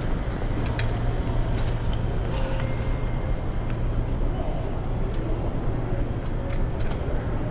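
Automated people-mover train at the station platform, a steady low hum and rumble, with scattered light clicks.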